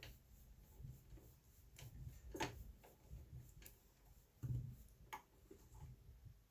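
Faint, scattered clicks and light knocks of an Allen wrench working the screw that fastens a plastic handle onto a manual die-cutting machine, the sharpest click about two and a half seconds in.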